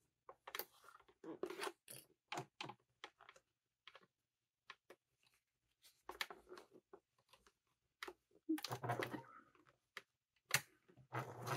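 Clicks and rustles of stiff fabric and plastic sewing clips being handled. A domestic sewing machine runs briefly about nine seconds in, then starts stitching again just before the end, basting the pocket edges.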